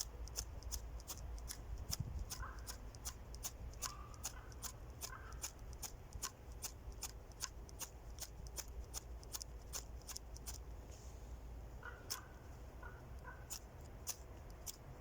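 A striker scraping down a ferro rod again and again, about three quick strokes a second, trying to throw sparks onto damp tinder that won't catch. Crows caw a few times in the background.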